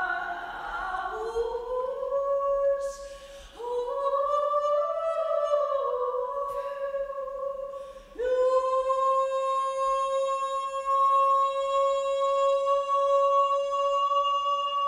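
Soprano singing slow, sustained notes, each sliding up into pitch after a short break; the last note, from about eight seconds in, is held long and steady.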